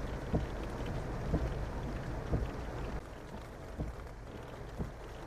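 Heavy rain pouring down on a flooded street: a steady hiss with a low rumble, and soft thumps about once a second. It gets a little quieter about three seconds in.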